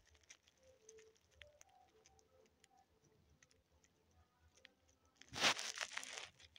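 Faint soft ticks of yarn and a crochet hook being handled, then, about five seconds in, a louder rustle lasting about a second as the yarn strands are pulled and handled.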